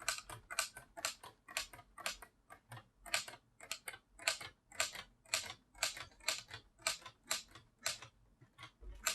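Keys of a LEGO brick-built typewriter being pressed one after another at about three clicks a second. Each stroke is a plastic click as the type bar hits the type basket and the carriage steps along.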